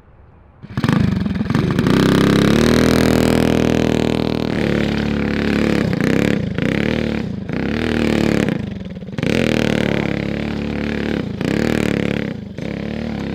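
Tillotson 225cc single-cylinder racing engine on a Trailmaster MB200 mini bike revving hard while the rear tyre spins in a burnout on wet dirt and grass. It comes in loud under a second in and holds high revs, dropping briefly about five times as the throttle is eased and climbing straight back.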